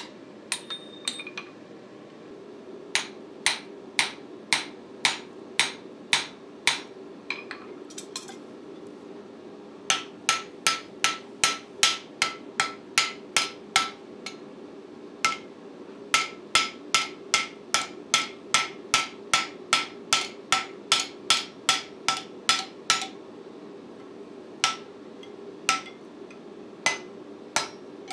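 Blacksmith's hand hammer striking hot O1 tool steel on the anvil while forging an axe head. The sharp, ringing blows come in runs of about two to three a second, with short pauses between runs and a few scattered blows near the end.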